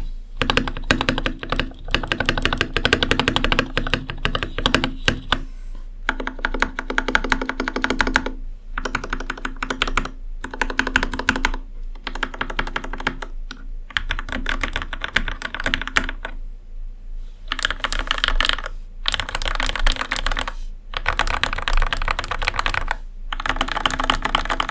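Mechanical keyboard being typed on quickly: a GamaKay LK67 fitted with Gateron Milky Pro Yellow switches, its keys clacking in runs of a few seconds with short pauses between them.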